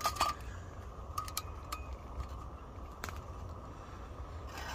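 Just-lit gas lantern being handled: light metallic clinks and taps from its wire handle and fittings, a handful of them at irregular intervals, over a steady low hiss.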